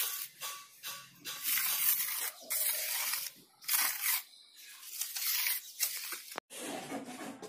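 Steel trowel scraping and smoothing wet cement mortar on a concrete stair slab: a rasping hiss with each pass, in repeated strokes about one a second.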